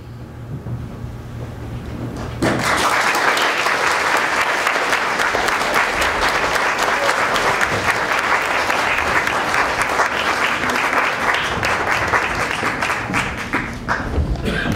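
Audience applauding. The clapping starts suddenly about two and a half seconds in and keeps up steadily, after a low hum that grows louder.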